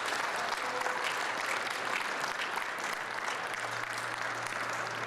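Audience applauding, steady clapping from a crowd.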